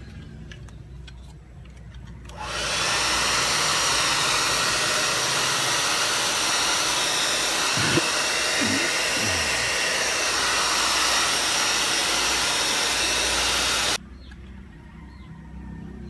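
Handheld hair dryer blowing steadily on the leather wrap of a car door handle, heating it to soften it. It switches on about two seconds in and cuts off suddenly a couple of seconds before the end.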